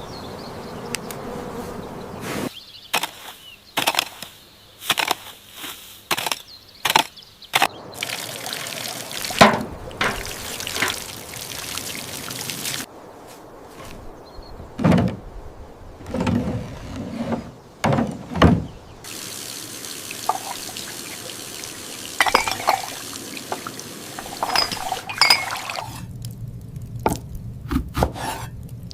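Water pouring and splashing, among a string of short knocks and clatters.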